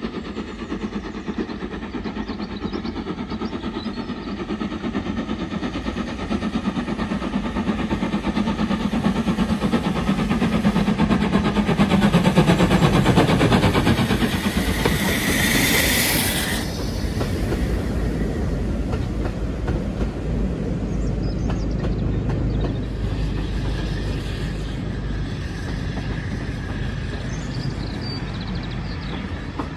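LMS Jubilee class steam locomotive 45690 Leander, a three-cylinder 4-6-0, working a train under steam. Its chuffing grows steadily louder to a peak just before halfway. Then a roar of exhaust cuts off suddenly as the engine passes below, and the coaches follow with a lower rumble and wheel clatter.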